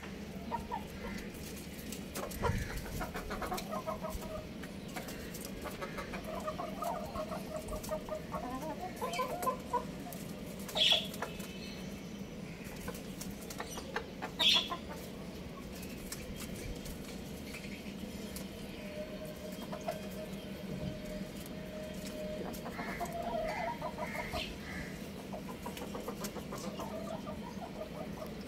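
Young roosters clucking and calling on and off, with two louder, sharp calls about eleven and fourteen seconds in, over a steady low hum.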